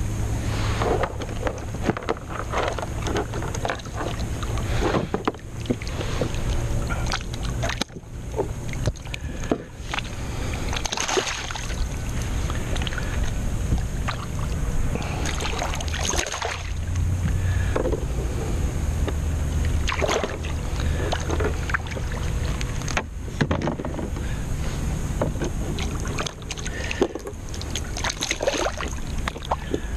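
Low wind rumble on the microphone and water lapping around a kayak, with scattered knocks and rattles of fishing gear being handled while a fish is reeled in. The fish splashes at the surface beside the hull near the end.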